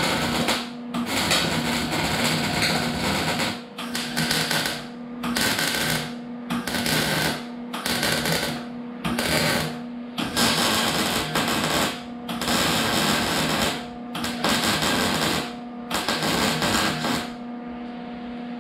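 MIG welder laying short beads on an exhaust muffler: the arc crackles and sizzles in a string of bursts of about one to two seconds each with brief pauses between, over a steady hum, and stops near the end.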